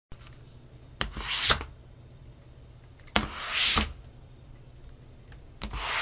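Three whoosh sound effects from an animated title intro, spaced about two and a half seconds apart. Each opens with a sharp click, swells to a loud peak and then cuts off suddenly.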